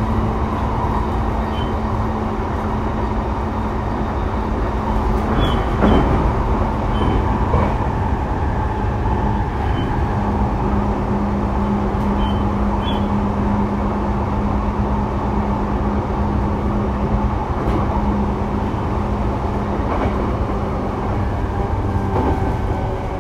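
Inside a Sotetsu 12000 series electric train running between stations: a steady rumble of wheels on rail with a steady low hum, and a few sharp clicks.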